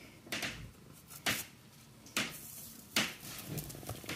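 A few short, light knocks and taps, about one a second: the sound of dough pieces being laid in a cast-iron frying pan and its heavy lid being handled.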